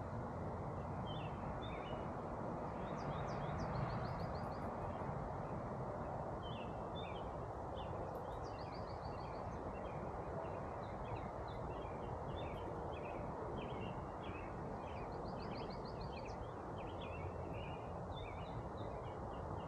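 Birds chirping and calling over a steady background hiss, with a quick high trill heard three times.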